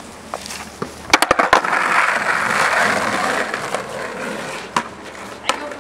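Skateboard on concrete: a quick cluster of sharp clacks about a second in, then the wheels rolling over the concrete for a couple of seconds, and a couple more single clacks near the end.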